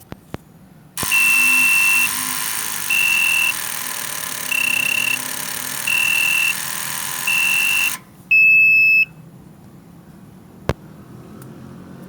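Generator control panel alarm beeping: five high beeps about every second and a half over a loud steady hiss, then one last beep just after the hiss cuts off. It is the no-start warning, here signalling a battery problem.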